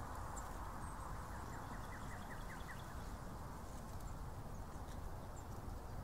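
Steady hiss and low rumble of road traffic on a nearby highway. About a second and a half in, a bird gives a quick run of about seven short notes.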